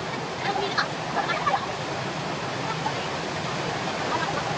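Waterfall pouring over rocks into a pool: a steady rushing of water. People's voices rise over it briefly in the first second or two and again near the end.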